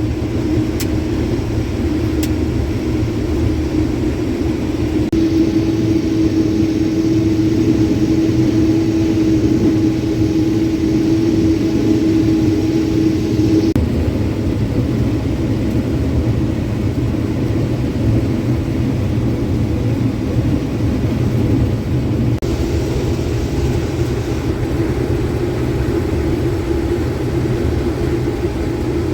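Combine harvester running steadily while picking and shelling corn, heard from inside the cab: a constant low drone with a steady tone that grows stronger about five seconds in and eases back near fourteen seconds.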